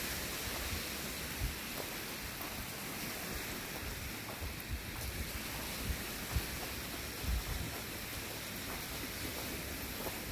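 Steady wind with choppy lake waves washing onto a gravel shore; low gusts buffet the microphone now and then.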